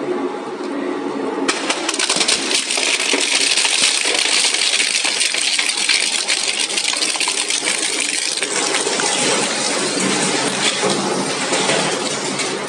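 Industrial shredder running with a steady motor hum; about a second and a half in, a dense metallic clatter of material being crushed and torn sets in and keeps on.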